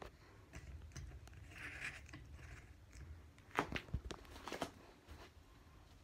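Faint steady hum of a 52-inch Evergo hugger ceiling fan running, under soft rustles and clicks from the handheld camera being moved. The loudest is a short cluster of clicks a little past the middle.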